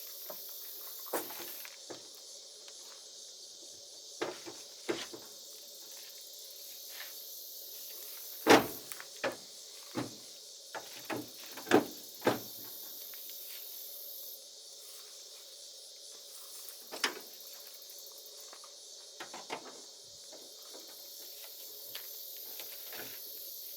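Scattered sharp metallic clicks and knocks from a screwdriver prying at a jammed hood latch on a 1969 Ford F-250. The loudest knock comes about eight and a half seconds in, followed by a quick run of knocks over the next four seconds, all over a steady high hiss.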